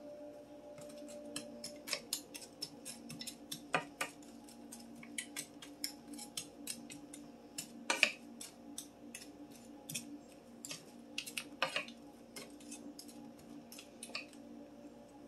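A slotted wooden spatula stirring frozen mixed vegetables in a square copper-coloured frying pan: quick, irregular clicks and scrapes of the spatula and hard vegetable pieces against the pan. A few louder knocks come about 4, 8 and 12 seconds in.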